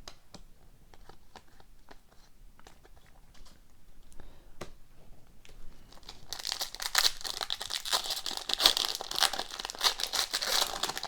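Trading cards being handled with light scattered clicks, then from about six seconds in a trading-card pack wrapper being torn open and crinkled, a loud dense crackle.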